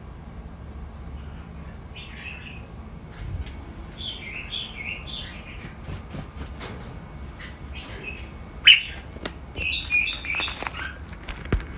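Red-whiskered bulbuls calling: several short runs of quick, chirpy notes, with a few sharp clicks among them, the loudest about three-quarters of the way through.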